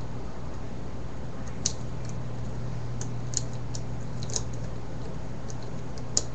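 Small plastic pieces of a Rubik's 4x4 cube being handled and fitted onto the core, giving a few light, scattered clicks, over a steady low hum.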